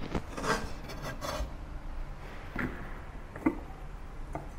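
Cleaver cutting through the root base of a shimeji mushroom cluster on a bamboo cutting board: scraping strokes in the first second and a half, then a few light knocks as the mushrooms are handled.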